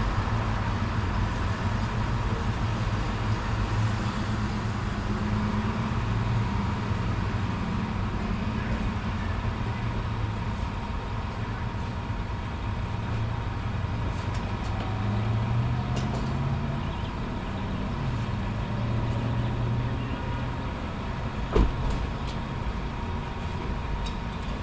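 Gas station ambience: vehicle engines idling with a low, steady drone that wavers slowly in pitch. A thin steady tone sits above it, and a single sharp knock comes near the end.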